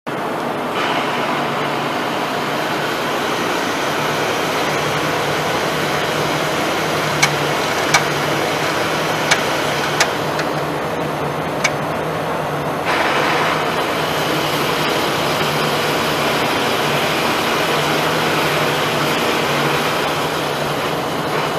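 Monarch T lathe running with its large faceplate spinning: a steady mechanical running noise over a low hum. A few sharp clicks come between about seven and twelve seconds in, and the noise gets a little louder just after.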